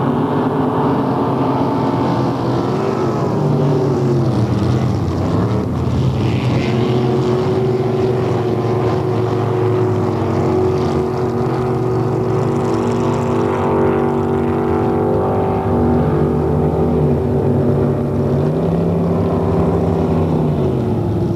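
Racing motorboat engines running loud and steady, several engine notes at once, their pitch sliding down and up a few times.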